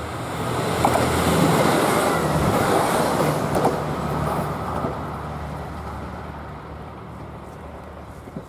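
Two-car JR Shikoku 2000 series diesel tilting train passing close by: its diesel engines hum under the rumble of the wheels on the rails, with a few sharp clicks. The sound is loudest about one to three seconds in, then fades steadily as the train moves away.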